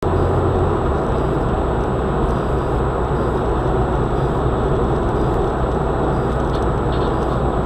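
Steady road noise of a moving car heard from inside the cabin: an even rumble of tyres and engine that holds constant throughout.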